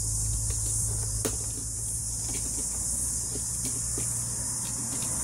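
Steady high-pitched chirring of insects, with scattered faint clicks and scrapes from a knife cutting into a black polypropylene rubbish-bin lid.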